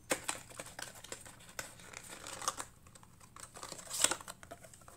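Fingers and fingernails clicking, tapping and rustling on the packaging of a hard-to-open cosmetic powder: a string of irregular small clicks, the loudest about four seconds in.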